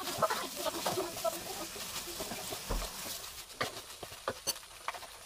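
Rice vermicelli stir-frying in a wok: a steady sizzle, with a wooden spatula scraping and tossing the noodles against the pan. Several sharp knocks come in the second half.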